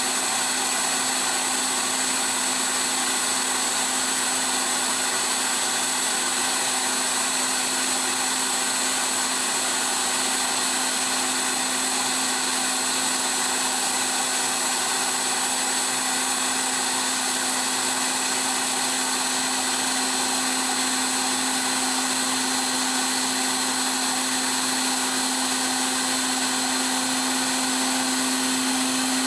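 Tool post grinder running, its wheel finish-grinding the R8 taper of a steel arbor on a light pass of about a thousandth of an inch. It is a loud, steady hum with a faint high whine that starts abruptly.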